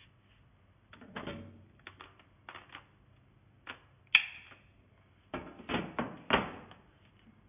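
Hard plastic parts of an Orfeld V20 cordless stick vacuum being handled and fitted together: a scatter of clicks and knocks as the extension tube, floor brush and main unit are joined, with the sharpest click about four seconds in and a quick cluster of knocks near the end.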